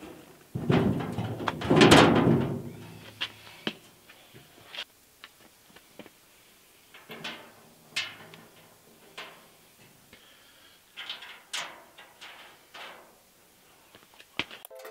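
Sheet-metal panel being handled and fitted inside a steel motor housing: a burst of clattering and knocking about a second in, the loudest part, then scattered light knocks and clicks of metal against metal.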